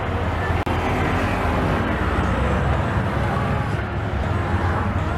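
A tuk-tuk's small engine running steadily under way, with road and traffic noise, heard from inside the open three-wheeler. The sound drops out for an instant about half a second in.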